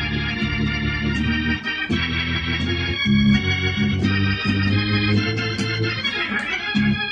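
Electronic keyboard played with an organ sound: sustained gospel chords over a held bass, changing chord every second or two.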